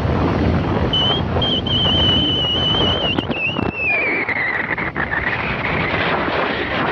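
Wind buffeting the microphone of a camera moving along a road. About a second in, a clear high whistle-like tone holds steady, then slides down in pitch and fades over the next few seconds.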